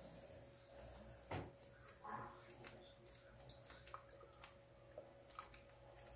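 Near silence: a faint steady hum with a few soft clicks and taps of handling as a carton of sweetened condensed milk is poured into an aluminium pot.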